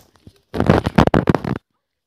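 Wind buffeting the phone's microphone: a loud, crackling rumble lasting about a second that starts about half a second in and cuts off abruptly.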